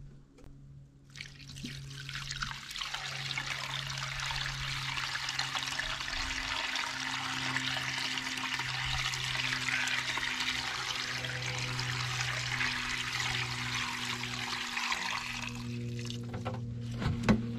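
Water from a garden hose spray wand running into a garden pond, topping up its low water level. A steady rushing splash starts about a second in and dies away near the end.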